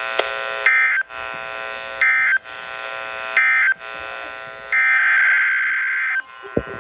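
Emergency Alert System SAME data tones: three short, shrill data bursts about a second and a half apart over a steady electronic buzz, marking the end of the alert message. About five seconds in, a longer burst begins the header of the next alert.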